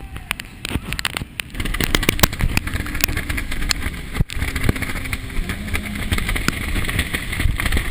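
Hurricane-force wind blowing hard and buffeting the microphone, with many sharp clicks and knocks scattered through it. It gets louder about a second and a half in.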